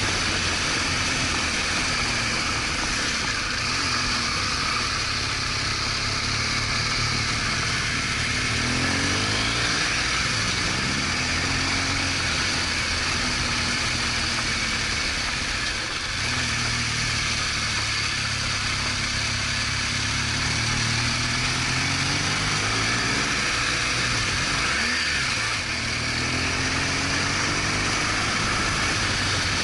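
BMW R1200GS Adventure's boxer-twin engine running under way, its pitch rising and falling several times with throttle and gear changes, under steady wind noise.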